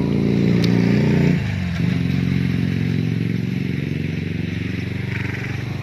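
A small engine running steadily, its note dipping and breaking off briefly about a second and a half in, then picking up again and slowly fading.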